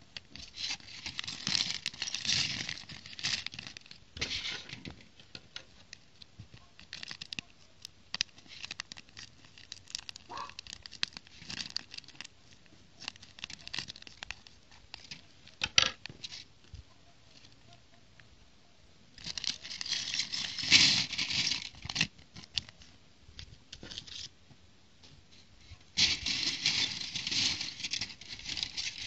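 A thin plastic bag of toy bricks is crinkled and torn open by hand, in loud bursts of rustling near the start, about twenty seconds in and near the end. Small plastic bricks click against each other and a plastic plate in between.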